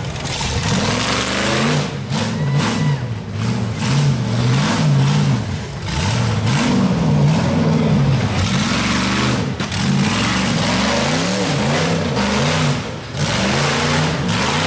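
Rock bouncer buggy's engine revving in repeated bursts, its pitch rising and falling over and over as it climbs over rocks under load.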